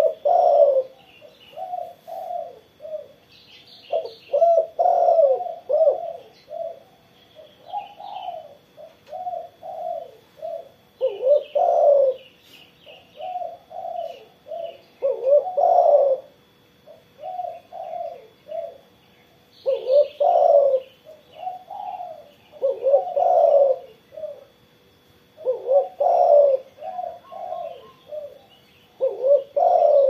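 Spotted dove cooing repeatedly: phrases of several low coo notes, one phrase every few seconds.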